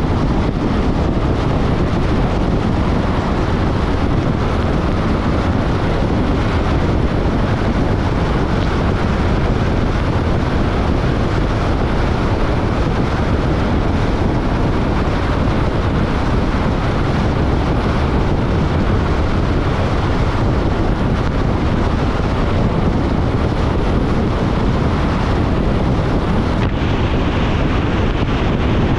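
Steady rumble and hiss of a car driving, tyre and wind noise at an even level with no breaks.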